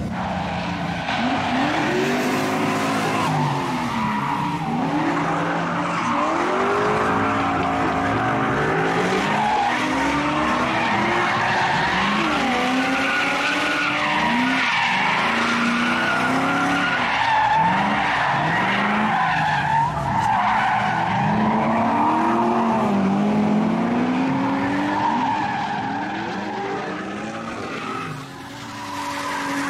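Audi A4 saloon drifting on smoking tyres: the engine revs up and falls back over and over, a new rising rev every second or two, over continuous tyre squeal.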